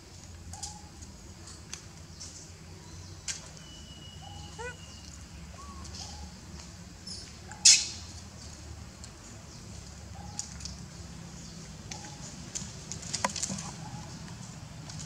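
Short animal calls repeating about every second and a half, with a few sharp clicks, the loudest about halfway through.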